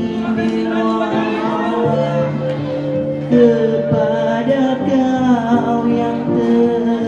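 Karaoke-style performance: a backing track of held keyboard chords over a bass line, with a man singing into a handheld microphone.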